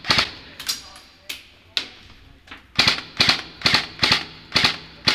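Airsoft rifle firing single shots, each a short sharp crack. About five come at uneven spacing, then a steady string of about two a second.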